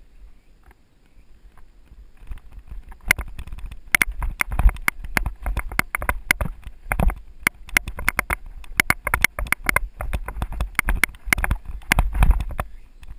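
Mountain bike rattling over rough dirt singletrack on a descent: a dense, irregular clatter of clicks and knocks from the bike, over a low rumble. It is sparse at first and picks up about three seconds in.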